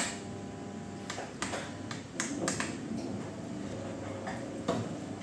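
A sharp switch click, then the foam indentation hardness tester's drive running with a faint steady hum as its indenter is lowered, with a few scattered clicks and ticks.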